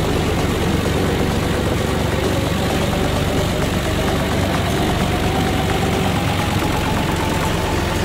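Small farm tractor's engine running steadily, with a thin whine that slowly rises in pitch.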